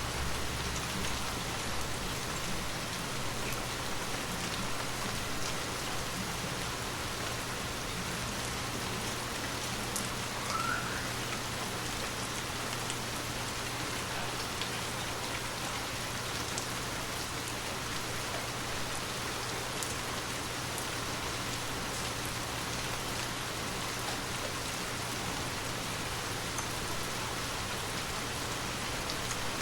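Gentle rain falling steadily, a continuous hiss with scattered individual drop patters, under a faint steady low hum.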